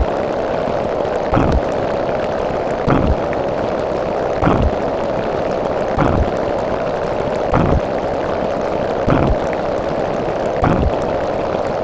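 Looped meme sound effect: a hollow 'tung' knock repeating evenly about every second and a half over a steady rushing hiss.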